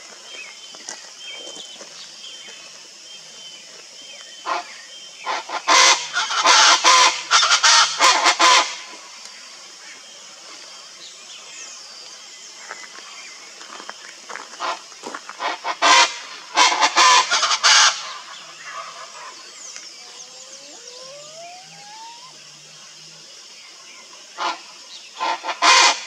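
Chaco chachalaca calling in three bouts of loud, harsh, rapidly repeated notes, the first and longest lasting about three seconds, with quieter gaps between the bouts.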